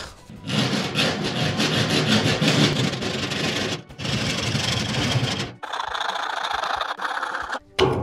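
Repeated rapid strokes of a hand tool scraping paint off metal, so that a cart wheel will slide onto its axle. The scraping is dense and continuous, breaks off briefly just before four seconds in, then goes on thinner and higher for about two seconds near the end.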